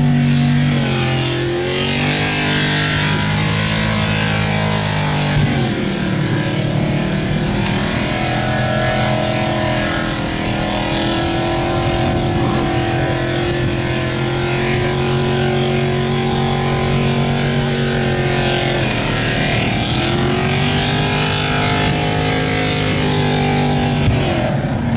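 Holden VK Commodore's V8 engine held at high revs through a burnout, its tyres spinning on the bitumen. The revs dip and climb back up several times.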